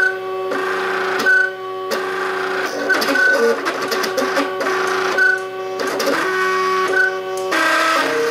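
MakerBot Cupcake CNC 3D printer's stepper motors singing in steady tones while it prints. The pitch jumps with each new move, every half second to a second and a half, and the moves come short and quick in the middle.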